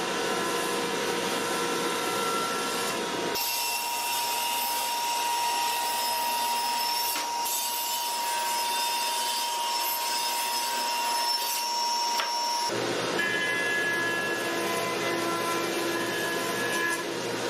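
Woodworking machines running as wood is fed through them: a jointer cutting a cherry board, then a table saw ripping a board, then the jointer again surfacing a short piece. Each is a steady motor hum with cutting noise, and the sound changes abruptly about three seconds in and again about thirteen seconds in.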